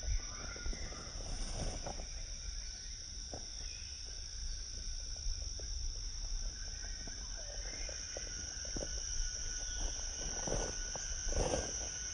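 Insects droning steadily at a high pitch in tropical hill forest. Under it are a low rumble and scattered soft knocks, the loudest a little before the end.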